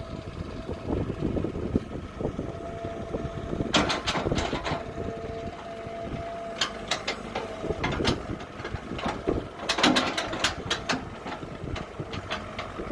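Kobelco 07 excavator's diesel engine running under load, with a steady whine, and sharp knocks and clatters as it digs, in clusters about four seconds in and again around eight and ten seconds.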